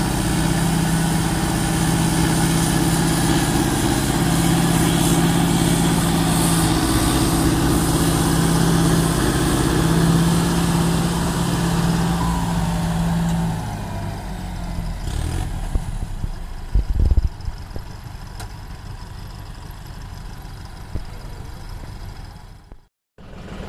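Diesel tractor engines running hard, hitched to pull a loaded trolley out of mud, with a steady heavy engine note. About halfway through the engine sound drops away to quieter running, with a few knocks a little later and a brief cut-out of all sound near the end.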